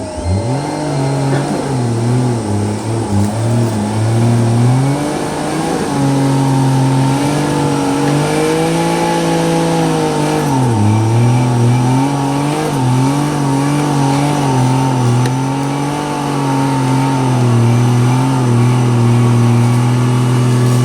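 Off-road 4x4's engine revving up and down under load, its pitch wavering throughout and dropping briefly about ten seconds in.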